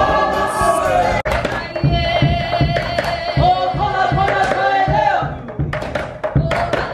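About a second of group singing, then a sudden cut to a woman chanting with a wavering voice over a regular beat of low thuds from an ipu gourd drum. From about two-thirds of the way in, sharper slaps or strikes take over the beat.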